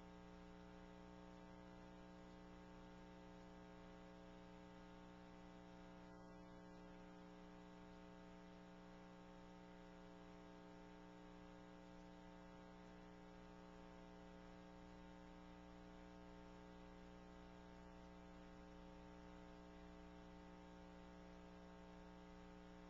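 Near silence with a faint, steady electrical hum that does not change.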